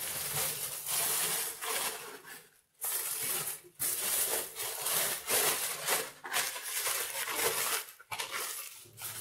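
Aluminium foil crinkling and rustling as it is folded and pressed by hand around a rolled pork roast, in a run of bursts with a few short pauses.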